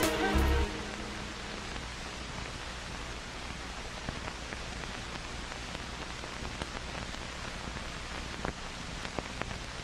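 Steady hiss with scattered faint clicks and crackles, the background noise of an old film soundtrack, after music cuts off within the first second.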